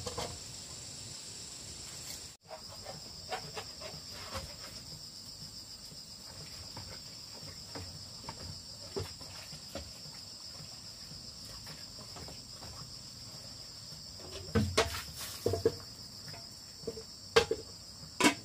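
Steady, high-pitched trilling of an insect chorus, with scattered sharp knocks and clatters near the end that are the loudest sounds.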